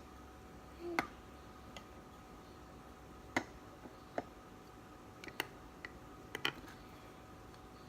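Scattered light clicks and taps of plastic toy-kit parts being handled and fitted together, about eight in all at irregular intervals, with a couple of louder clicks about a second in and three and a half seconds in.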